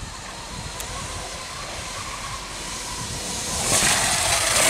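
Electric dirt bike riding, its motor giving a faint steady whine, with a rushing hiss of tyres and wind that swells and is loudest near the end.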